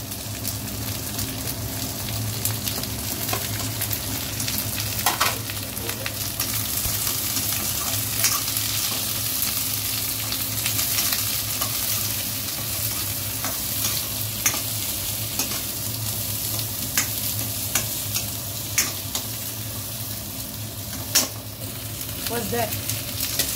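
Sliced carrots, onions and red chillies sizzling in hot oil in a wok as they are stir-fried with a metal spatula, which clicks and scrapes against the pan now and then. A steady low hum runs underneath.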